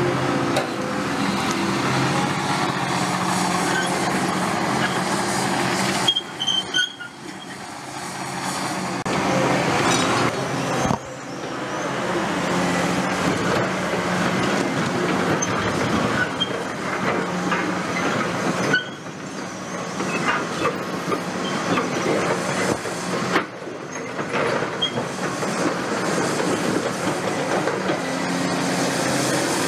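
Diesel engine of a CAT 330F hydraulic excavator running under load while its concrete pulverizer jaws crush concrete foundation slabs, with steady crunching and rattling of breaking concrete and rubble.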